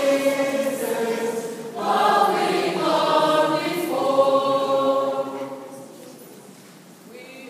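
Mixed youth choir of boys and girls singing a hymn in parts, with no instruments heard, holding chords from one syllable to the next. The singing dies away about five and a half seconds in, and the next chord starts right at the end.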